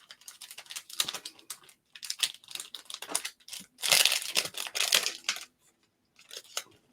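Trading cards and a pack wrapper being handled: a run of small clicks and rustles, then a louder crinkling, tearing stretch about four seconds in.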